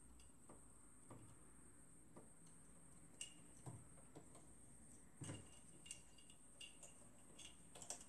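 Faint, irregular clicks and taps of small plastic parts being handled: wires being worked into the plastic wire guide of a Xerox 3370 fuser. A faint steady high whine sits underneath.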